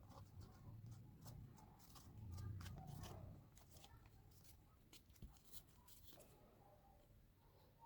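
Near silence, with faint scattered light clicks and taps over a low hum.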